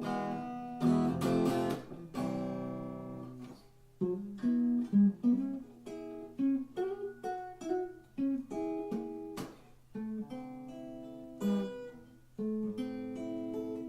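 Acoustic guitar played out of tune: a few strummed chords, then picked single notes and short phrases from about four seconds in.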